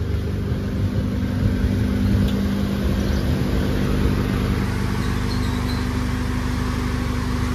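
Nissan Sentra engine idling steadily with its electric cooling fan running, a continuous low hum with a steady tone. The car is running again after its crank-but-no-start fault.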